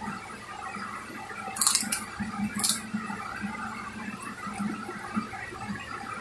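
Clear polythene bag crinkling as it is handled and folded, with two short, sharp crackles about one and a half and two and a half seconds in.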